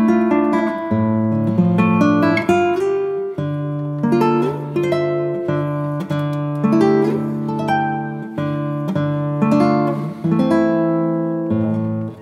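Background music played on acoustic guitar: plucked notes and strummed chords that ring and fade, the chord changing every second or two.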